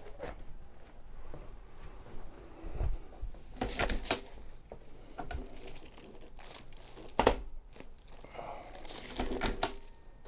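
Chiropractic drop table clacking several times during a neck adjustment. The loudest, sharpest clack comes about seven seconds in, with softer rustling between the clacks.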